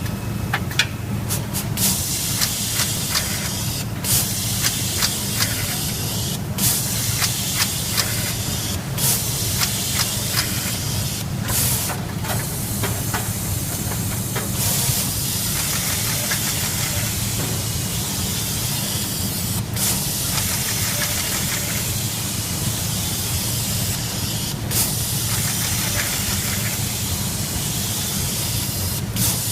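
Automated SMD electronics assembly line machinery running: a steady hiss of air and fans over a low hum, with frequent sharp clicks and ticks, most of them in the first half.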